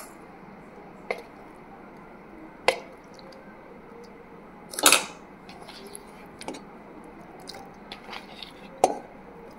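A metal spoon tapping and knocking against a stainless-steel mixer jar as mango chunks are dropped in: about five short, separate knocks spread out, the loudest about five seconds in.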